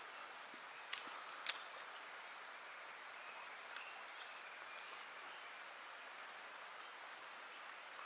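Quiet jungle-stream ambience: a steady faint hiss with a few faint high bird chirps. Two sharp clicks come about a second in, half a second apart, with a softer click a little later.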